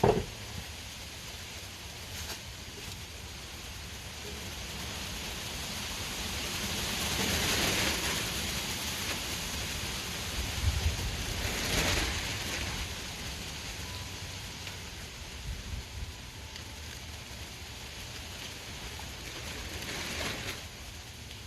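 Strong wind gusting, swelling and easing several times, with gusts buffeting the microphone into a deep rumble. A brief knock sounds right at the start.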